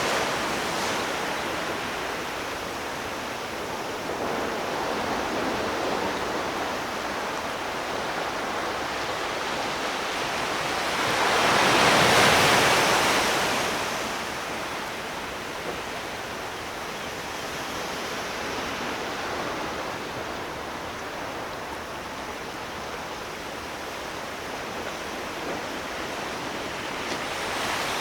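Sea surf washing in: a steady rush of water, with one bigger wave swelling up and falling away near the middle.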